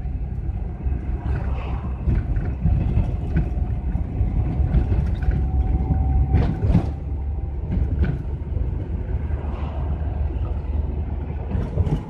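Inside the cab of a GAZelle camper van on the move: steady low engine and road rumble.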